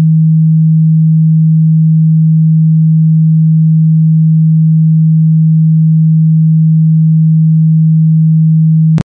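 Computer-generated pure sine tone, low-pitched at about 160 hertz, played by MATLAB's sound(y,1000) command: a sine of 10,001 samples played at 1,000 samples a second. It holds perfectly steady, then cuts off with a click near the end.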